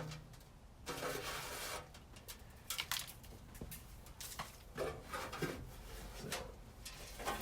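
Scattered handling noises: short, irregular knocks and rubbing sounds, with a longer rustle about a second in, over a faint steady low hum.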